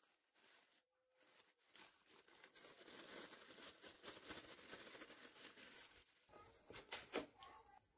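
Plastic oven roasting bag crinkling and rustling as it is peeled back and pulled off a glass baking dish, starting about two seconds in, with a sharp crackle near the end.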